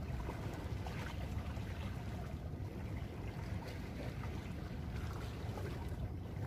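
Wind buffeting the microphone: a steady, uneven low rumble, with faint water sounds.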